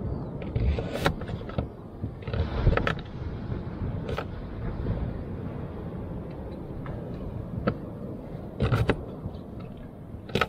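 A steady low rumble, like wind on the microphone, broken by a handful of sharp knocks and clicks from vegetables being cut and handled.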